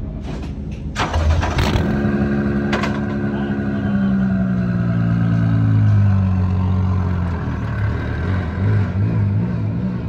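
Toyota Hilux rally-raid truck's engine started from the cockpit switch panel. It catches about a second in, runs high, then falls over a few seconds to a steady idle that rises and falls slightly near the end.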